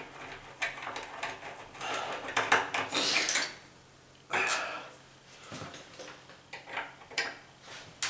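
A screwdriver backing out the mounting screws of a brass lever door handle, with irregular metal scraping and clicking from the screws and handle hardware. The noise comes in louder stretches about two to three and a half seconds in and again around four and a half seconds.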